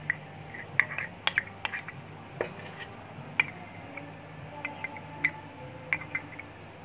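A small metal spoon scooping powder out of a small jar, with scattered light clicks and taps as it knocks against the jar and the stainless-steel bowl.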